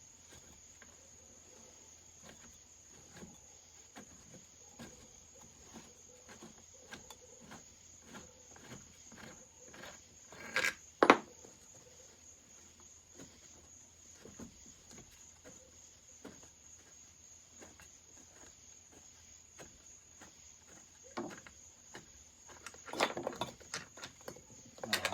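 Hand tools loosening the two muffler bolts on a Pioneer Farmsaw chainsaw: a long run of small, regular clicks, two sharp knocks about eleven seconds in, and a clatter of knocks near the end as the muffler comes off.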